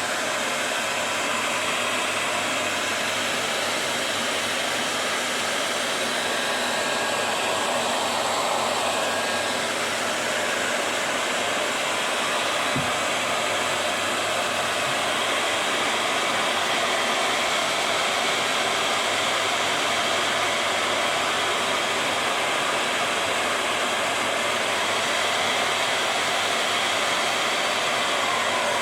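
Hair dryer running steadily on one setting, blowing hot air over a plastic bottle sleeve to heat-shrink it onto a juicer part.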